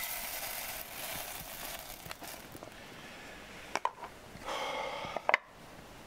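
Handling noises of clothing and gear: rustling, then a sharp click, another stretch of rustling and two loud clicks near the end.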